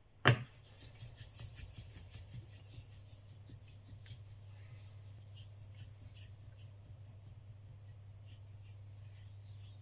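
Kanna (Japanese plane) blade being rubbed back and forth on a wet Japanese natural whetstone, a Shoubudani mizu asagi, a soft gritty scrape with each stroke. A single sharp knock comes just after the start.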